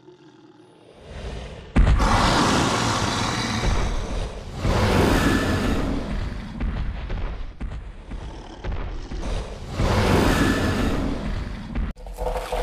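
Movie-style Tyrannosaurus rex sound effects: a sudden boom about two seconds in, then long, harsh roars that swell twice over a low rumble.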